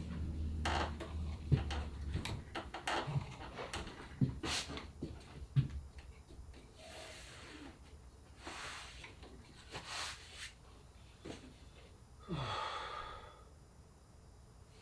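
Scattered light knocks and clicks with a few short rustling or scraping sounds. A low hum stops about two seconds in.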